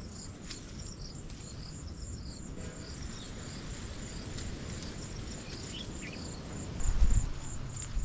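Crickets chirring steadily in a high, finely pulsed trill over a low rumble, with a few faint higher chirps. A muffled low bump about seven seconds in is the loudest sound.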